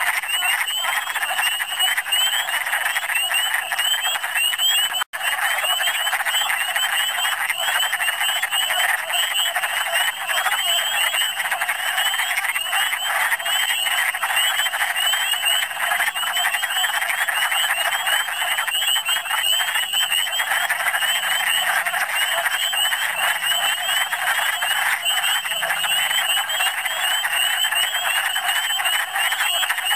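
Wood frogs calling in a dense, unbroken spring breeding chorus, many short calls overlapping. The sound cuts out for an instant about five seconds in.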